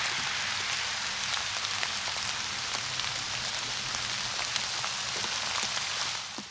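Steady rain falling, with individual raindrops ticking sharply and irregularly on a hard surface.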